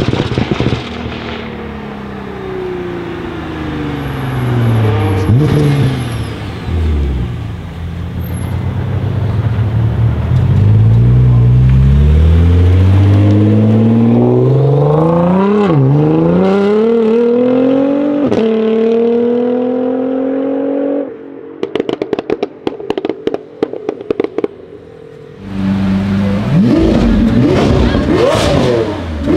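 Modified R35 Nissan GT-R's twin-turbo V6 slowing as it comes up, then accelerating hard with the engine note climbing through two quick upshifts. Next comes a quieter stretch of rapid crackling pops. In the last few seconds a Lamborghini Aventador's V12 revs up.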